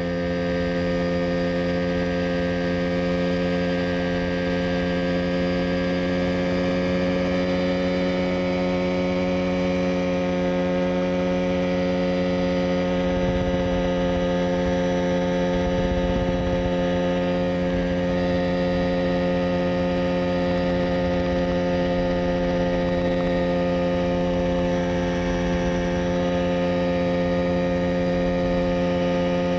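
Mosquito Air ultralight helicopter's engine and rotor running steadily in flight, heard from on board as an even hum of several layered tones over a low rumble.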